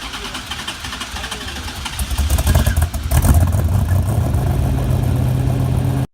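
A car engine running, growing louder about two seconds in and then holding a steady low note. It cuts off suddenly at the end.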